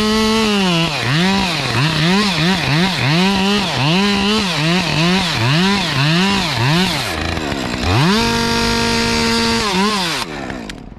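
Gas top-handle chainsaw cutting through a pine trunk at full throttle. The engine speed dips and recovers about twice a second as the chain bogs in the cut. Near the end it falls almost to idle, revs up again briefly, then the throttle is released.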